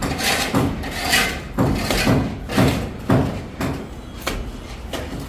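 Plastering trowel working mortar on a wall: a run of short slaps and scrapes, irregular, about two a second.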